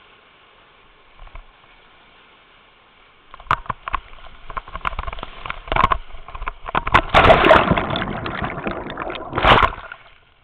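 Whitewater churning and splashing over the kayaker's camera in a rapid. A faint hiss at first, then from about three seconds in loud, uneven sloshing and crashing water with sharp slaps, surging hardest in the middle and again near the end.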